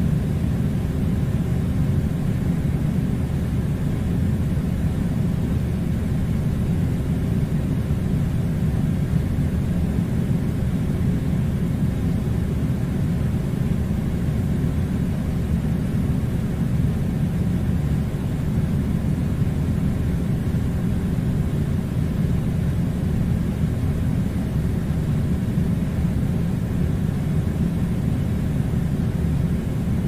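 A steady, low rumbling noise that does not change.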